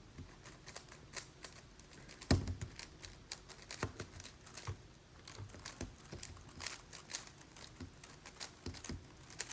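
Plastic speed-cube puzzles being turned: quick, irregular clicks and clacks, with a sharper knock about two seconds in.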